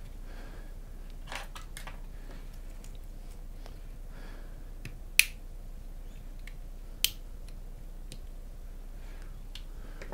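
Plastic casing of a USB flash drive being pried open along its seam with a metal spudger: scattered light clicks and ticks, with two sharp snaps about five and seven seconds in as the case's clips give way.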